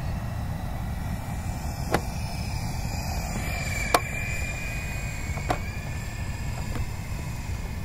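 Small electric radio-controlled coaxial helicopter in flight: a thin, high motor-and-rotor whine that drops a little in pitch past the middle, over a steady low rumble. Three sharp clicks come about two, four and five and a half seconds in.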